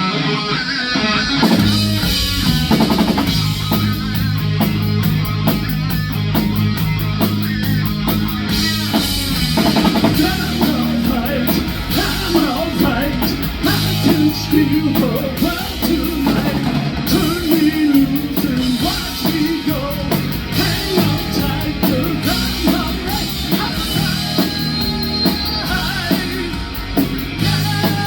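Live rock band playing: electric guitar over bass and a drum kit, loud and continuous.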